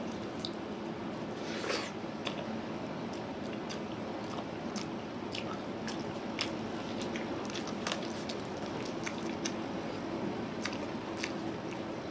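Close-up chewing and wet eating sounds of a man eating biryani with chicken curry by hand, with many short sharp clicks scattered throughout.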